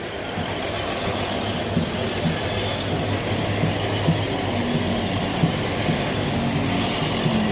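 Diesel coach engines idling, a steady low rumble with a hum.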